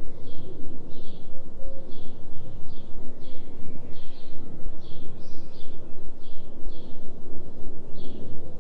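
A bird chirping over and over, short repeated notes about twice a second, over a loud low droning bed that pulses about three times a second, the 3 Hz delta binaural beat.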